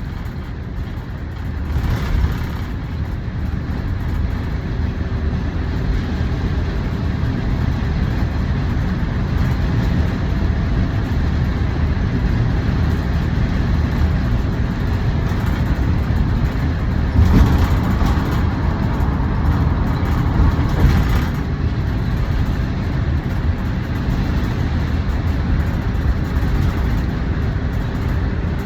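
Road traffic: a steady low rumble of passing vehicles, with louder vehicles going by about 2 seconds in and again around 17 and 21 seconds in.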